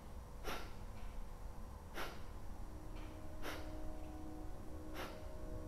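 Forceful nasal exhalations of Kapalbhati breathing, each a short sharp puff of air through the nose: four of them, evenly spaced about one and a half seconds apart.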